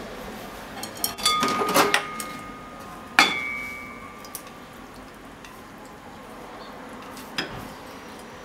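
Frying pan and chopsticks clinking against a ceramic bowl as scrambled tofu and egg is scraped out into it. A quick run of clinks comes about a second in, then one sharp clink that rings on briefly about three seconds in, and a single knock near the end.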